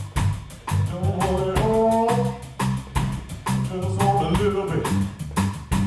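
Blues band playing live, with drums keeping a steady beat under a bass line that steps from note to note and a melodic instrumental fill between vocal lines.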